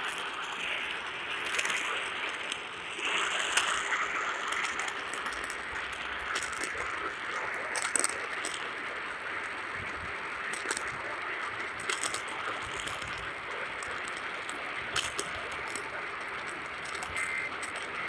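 Steady hiss of radio static with scattered crackles and clicks, like a weakly received station.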